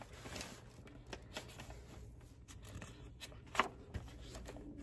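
Pages of a hardcover picture book being turned by hand: faint paper rustling and soft clicks, with one sharper page flick about three and a half seconds in.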